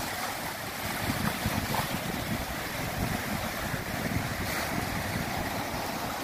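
Surf: small waves breaking and washing up over a sandy beach in a steady rushing noise, with wind buffeting the microphone.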